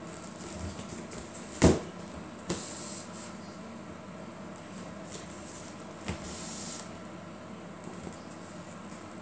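Woven seagrass storage basket and its lid being handled: a sharp knock about one and a half seconds in, a softer knock with a short rustle soon after, and another knock followed by a brief rustle about six seconds in.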